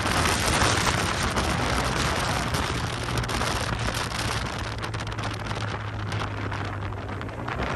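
Wind rushing over the microphone of a moving Yamaha TMAX maxi-scooter, with the engine's low steady hum underneath. The rush eases a little in the second half.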